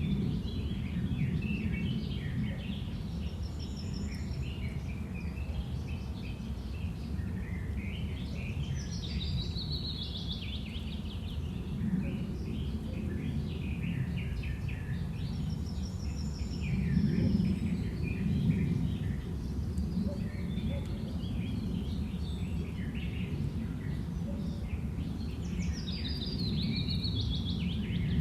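Wind ambience with birds chirping and trilling: a steady low rumble of wind that swells and eases, under frequent short high bird calls that come in busier flurries.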